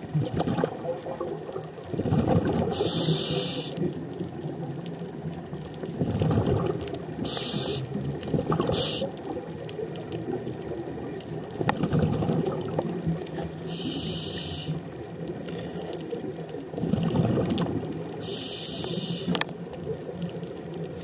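Scuba diver breathing through a regulator underwater: a high hiss about a second long on each inhalation, alternating with low bubbling rumbles of exhaled air, one breath about every five seconds.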